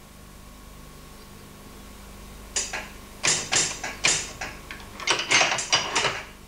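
Electric token block instrument in a signal box being worked as the token is put back: a dozen or so sharp metallic clacks and clunks in irregular groups, starting about two and a half seconds in.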